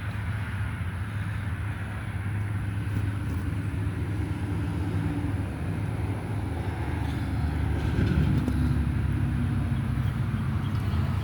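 An engine running steadily with a low hum, growing a little louder about eight seconds in.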